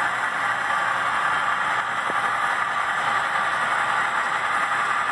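Model diesel locomotives running on the layout's track: a steady rushing whir of motors and wheels on rail, with no engine note standing out.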